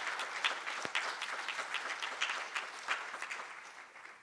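Audience applauding at the end of a talk, a steady patter of many hands clapping that dies away near the end.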